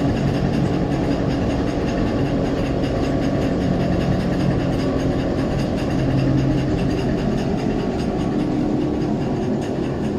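Horizontal hammer mill running while crushing scrap aluminium engine blocks: a loud, steady low drone with a fast, dense rattle over it.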